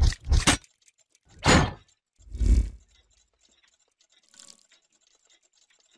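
Logo-animation sound effects: a few short glitchy bursts, a whoosh about a second and a half in, a hit with a deep low end about a second later, and a faint shimmer near the end.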